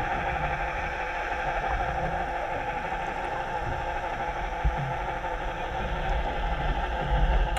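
Steady underwater rushing and hum close to a boat's hull: water noise with the boat's engine heard through the water, recorded by a GoPro in its housing.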